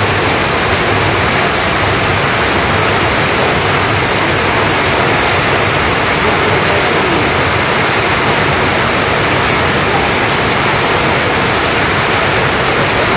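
Heavy rain falling steadily on corrugated tin roofs and the ground.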